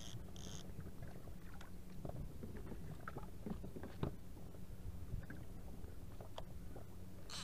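Low steady rumble of wind and water around a small inflatable fishing boat at sea, with scattered small clicks of tackle handling and one sharper knock about four seconds in.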